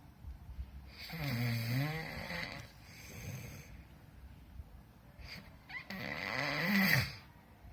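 A person snoring: two long snores, the first about a second in dipping and rising in pitch, the second near the end rising in pitch, with a softer breath between them.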